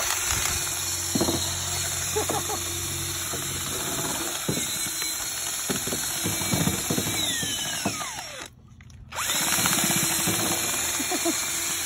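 DeWalt cordless drill spinning a rubber-finger poultry plucker against a scalded turkey, the motor's hum mixed with irregular slaps of the fingers on the wet feathers. The sound drops away briefly about eight and a half seconds in, then starts again.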